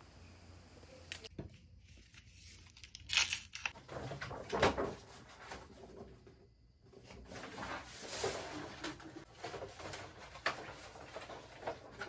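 A large paper poster being unrolled and handled, the stiff paper rustling and crackling in irregular bursts about three seconds in and again from about seven seconds on.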